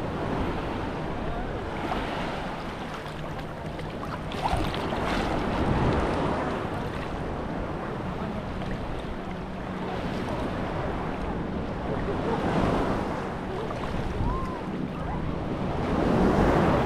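Sea waves washing onto a beach, swelling and easing every few seconds, with wind on the microphone. A faint steady low hum runs underneath.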